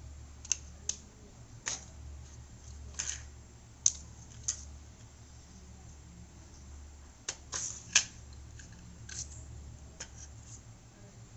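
Irregular sharp clicks and light knocks from a printed circuit board being handled and turned in the hand, over a faint low hum.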